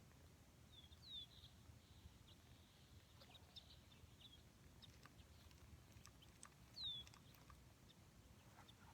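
Faint bird calls in near silence: two short, high, falling whistles, one about a second in and one near seven seconds, with a few tiny chirps between.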